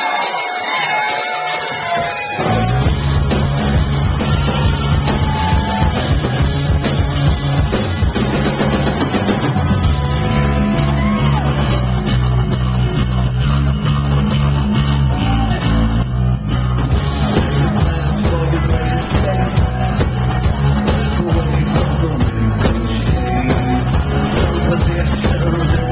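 Crowd cheering, then about two and a half seconds in a live rock band starts loud: bass guitar, drums and electric guitar with singing, heard through a small camcorder's microphone in the audience.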